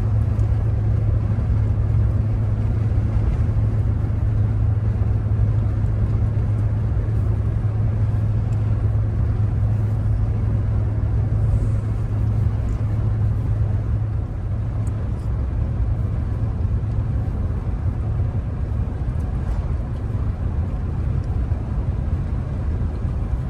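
Dodge vehicle being driven along a snowy road: a steady low drone of engine and road noise that holds level throughout.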